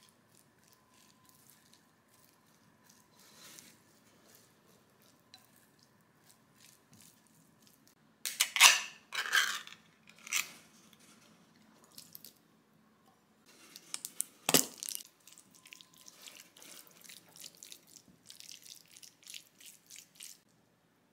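A pull-tab tuna can being opened: the lid pops and tears back in a few loud scraping bursts about eight seconds in, followed by a single sharp clack near fourteen seconds. Then a spoon scrapes and taps in a glass bowl as the tuna is stirred.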